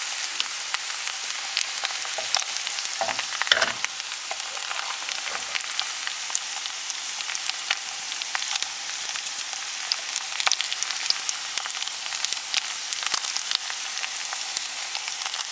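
An egg and grated potatoes frying in shallow hot oil in a frying pan: a steady sizzle full of fine crackles, with a few louder crackles about three seconds in. Hot oil is being spooned over the top to cook the egg white and temper the coriander and green chillies.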